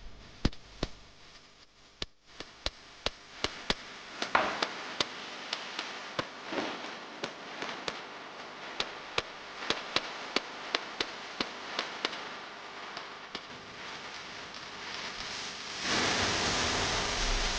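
A kitchen knife chopping on a cutting board: a long run of sharp, evenly spaced knocks, about two to three a second. About a second before the end, a louder steady whirring noise starts.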